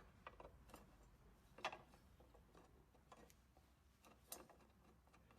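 Faint, scattered clicks and knocks, a handful in all, the loudest about one and a half seconds in, as of small parts or tools being handled.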